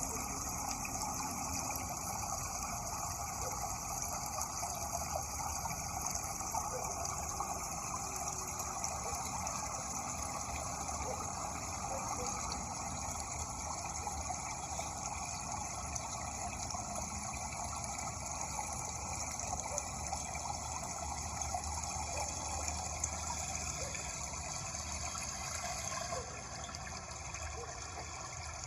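Steady rushing water, a constant even wash that dips slightly in level near the end.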